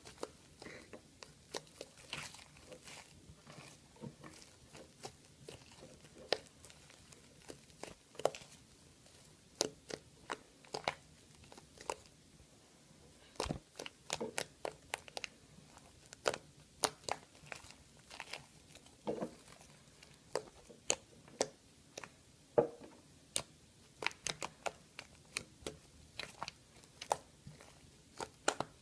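White slime squeezed and pulled apart by hand, giving a run of irregular sticky clicks and crackles, several a second at its busiest.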